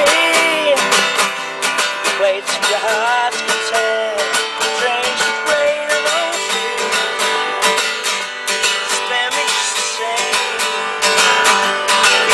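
Acoustic guitar strummed steadily, with a man's voice singing a melody over it.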